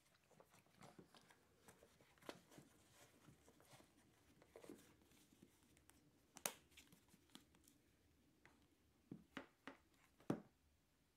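Faint handling of a leather watch roll and its suede watch pillow as the case is rolled up: soft rubbing with scattered small clicks and taps, and a few sharper clicks near the end.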